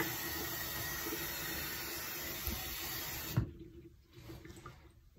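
Bathroom tap running into the sink with a steady hiss, shut off with a short knock about three and a half seconds in; faint handling sounds follow.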